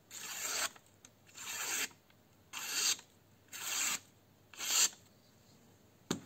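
A freshly sharpened grafting knife slicing through a strip of thin receipt paper. It makes five quick cuts about a second apart, each a rasping swish that grows louder and then stops sharply. This is the paper-cutting test of the edge honed on the inexpensive stone, and a short knock follows near the end.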